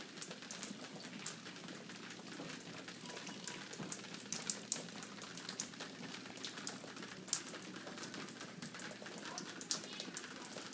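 Water from a ceiling leak dripping and pattering irregularly onto wet carpet and fallen ceiling-tile debris, the sign of an active leak. A few drips stand out louder around the middle.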